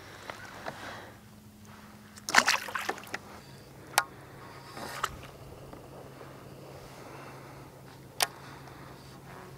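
Water lapping quietly against a kayak hull, with a brief clatter about two seconds in and two sharp single clicks later on, from fishing gear being handled on the kayak. A faint steady hum runs underneath.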